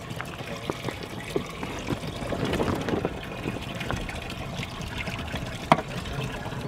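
Water splashing and dripping as largemouth bass are handled and lifted out of the water in a boat's livewell, with scattered light knocks and one sharp knock near the end.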